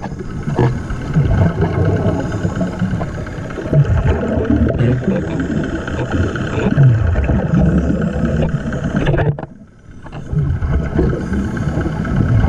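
Underwater sound of a compressor (hookah) diver breathing through an air hose: bubbling, crackling exhalations over a steady engine drone. The sound drops away briefly about nine and a half seconds in.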